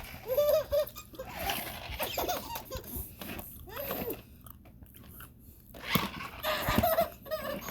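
A baby laughing and giggling in short high bursts, with a quieter pause about four seconds in before more giggles near the end.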